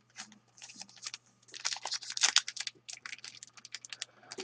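Hockey trading cards being handled and flicked through, card sliding against card in a quick, irregular run of light clicks and snaps, over a faint steady low hum.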